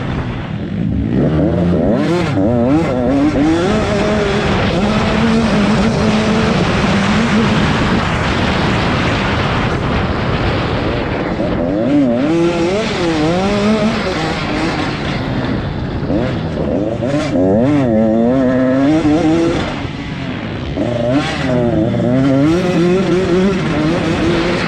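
Dirt bikes racing, several engines revving up and down over and over as the riders open and close the throttle.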